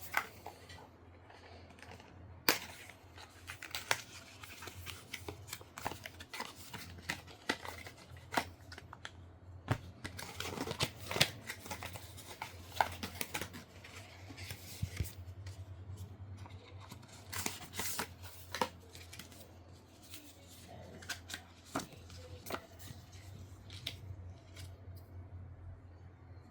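Unboxing handling noises of a gaming mouse's packaging: irregular sharp clicks, snaps and short rustles of cardboard and plastic, in clusters, over a faint low hum.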